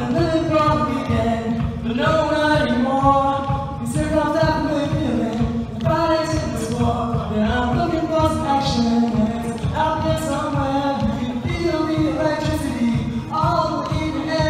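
All-male a cappella group singing: a lead voice over close backing harmonies, with vocal percussion keeping a steady beat underneath.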